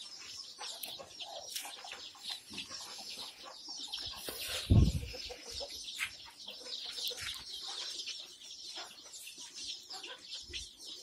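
A flock of young Kadaknath and desi chicks peeping continuously in many short, high chirps, with one brief, louder low thump about five seconds in.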